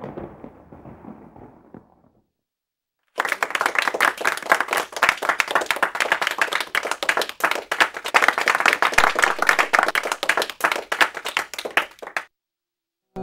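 A low rumble dies away over the first two seconds. After a short silence, an audience claps and applauds for about nine seconds, cutting off abruptly.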